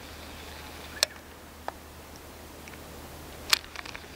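A few sharp clicks over faint steady background noise: one about a second in, a weaker one just after, and a louder one near the end followed by several faint ticks.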